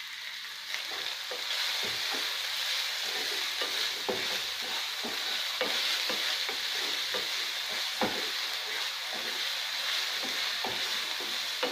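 Chopped onions sizzling steadily in hot oil in a kadai, with a wooden spatula stirring and scraping against the pan in frequent irregular knocks.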